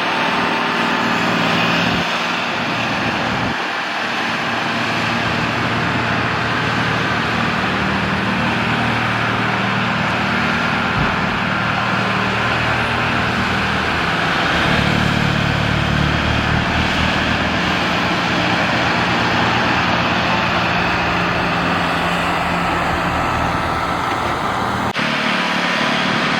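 Tractor diesel engine running steadily under load, driving a tractor-mounted snowblower, with a dense rushing noise over the engine note. The sound changes abruptly near the end.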